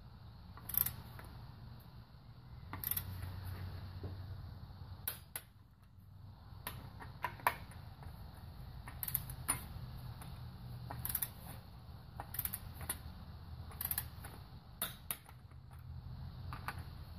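Click-type torque wrench tightening cylinder head bolts on a Toyota 1ZZ-FE engine to a first pass of 20 ft-lb: short sharp metallic clicks of the ratchet and wrench, irregular, about one every second, some in quick pairs.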